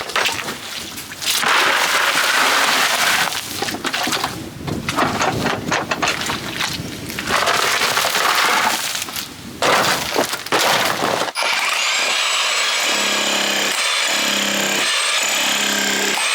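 Bursts of breaking and scraping as the old floor is broken up and dug out with tools. About eleven seconds in this cuts off suddenly, giving way to a steady sound with held high tones and a slow, repeating low pulse.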